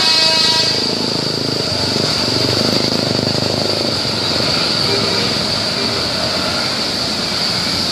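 The last notes of a bus's multi-tone telolet horn tune end within the first second, then steady road noise of passing buses and traffic, with engine rumble and a constant hiss.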